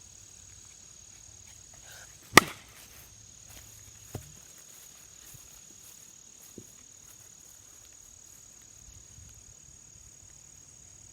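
One sharp crack of a baseball struck hard by a cracked DeMarini CF composite bat about two seconds in, followed by two faint knocks, over a steady high drone of insects.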